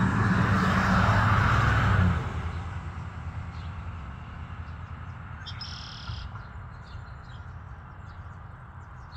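A low, steady engine hum, like a passing vehicle, cuts off sharply about two seconds in. After it come faint, high bird chirps, with one short high peep a little past the middle.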